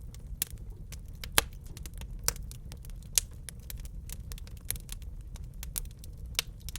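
Wood fire crackling in a fireplace: a steady stream of small irregular pops with a few louder, sharp snaps, over a low steady rumble.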